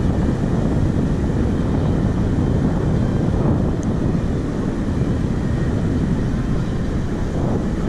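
Steady wind rushing over the microphone of a camera carried aloft under a parasail: a loud, even noise strongest in the low end, with no clear tone.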